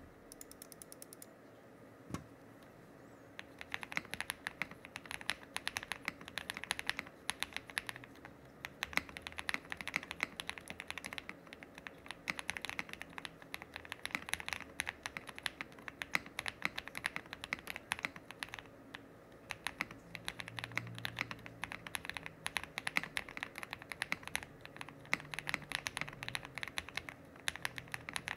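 Typing on a Tiger80 Lite mechanical keyboard fitted with lubed KTT Chalk switches: a single keystroke about two seconds in, then a steady, fast stream of keystrokes from about three and a half seconds on.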